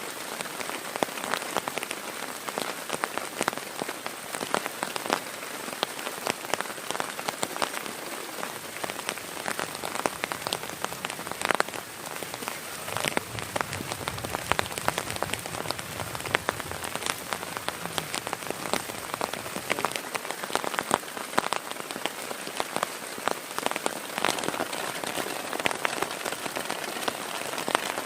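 Steady heavy rain, with many close, distinct drop hits striking a surface.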